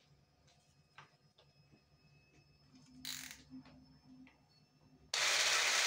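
A few faint clicks and knocks of handling, then about five seconds in an electric hand blender with a whisk attachment switches on and runs loudly and steadily, whisking sponge-cake batter.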